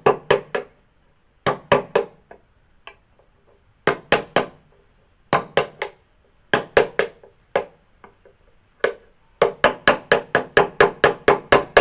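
Sharp knocking strikes on wood from hand woodworking. They come in short bursts of two to four, with pauses between, then a fast run of about a dozen strikes at roughly four a second near the end.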